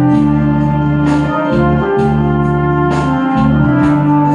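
Brass horn played over a backing track of organ or keyboard, bass and drums, holding long sustained notes.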